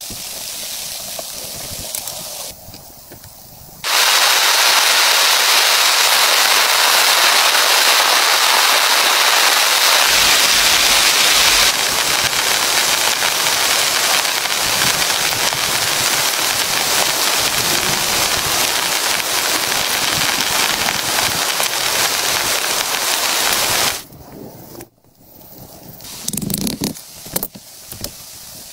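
Heavy rain falling hard on plastic sheeting stretched over a bamboo frame, coming in suddenly about four seconds in and cutting off about twenty seconds later. Before and after it, quieter crackling and scattered knocks.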